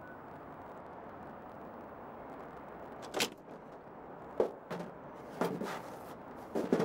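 A steady outdoor hiss, then a series of sharp knocks and clunks on a sheet-metal roof and window frame from about three seconds in, as someone clambers out of a dormer window onto the roof.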